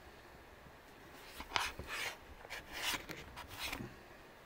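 A white plastic desk lamp with a metal gooseneck being handled: a string of short rubbing and scraping noises, starting about a second in.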